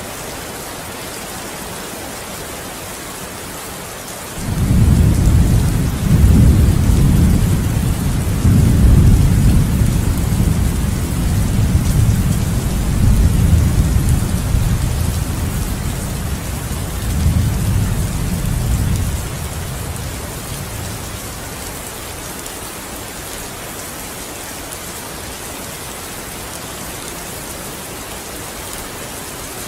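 Steady rain falling, with a long roll of thunder that breaks in suddenly about four seconds in, rumbles deep in several surges for some fifteen seconds and dies away, leaving the rain alone.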